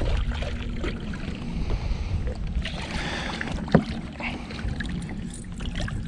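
Hooked northern pike splashing and thrashing at the water's surface beside the boat as it is played in. Underneath is a steady low wind rumble, and there is one sharp knock about two-thirds of the way through.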